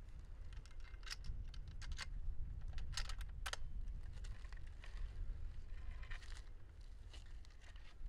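Low wind rumble on the microphone, with scattered small clicks and rustles clustered in the first half.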